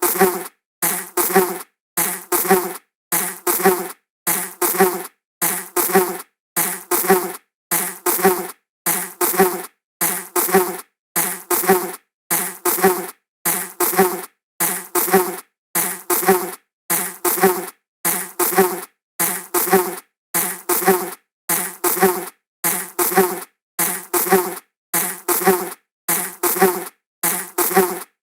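A flying insect buzzing past. The same short buzz repeats about once a second, with brief silences between.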